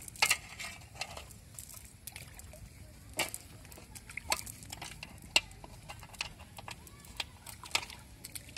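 Irregular rustles, taps and sharp slaps of hands picking fish out of a wet nylon cast net, about eight short sounds, the loudest near the start and about five seconds in.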